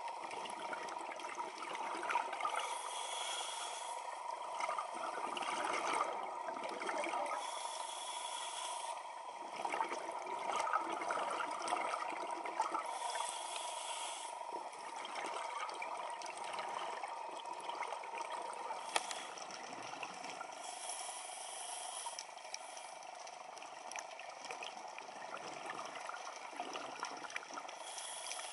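Underwater sound of scuba breathing through a regulator: a hiss of inhalation recurring about every five seconds, and bubbling exhalations in between, over a faint steady tone.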